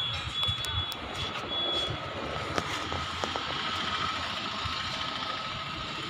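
Steady street traffic noise: a low engine rumble with a faint continuous high hum and a few light clicks.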